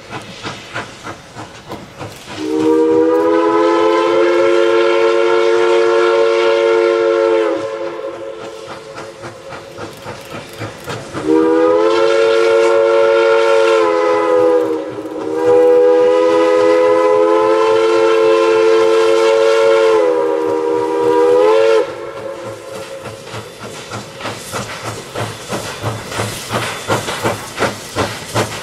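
Boone & Scenic Valley 8419, a Chinese-built JS-class 2-8-2 steam locomotive, sounds its chime whistle in four blasts: a long one about two seconds in, then two more long blasts from about eleven seconds, closing with a short one. Between and after the blasts its exhaust chuffs steadily at about two beats a second, growing louder toward the end as the engine works the train closer.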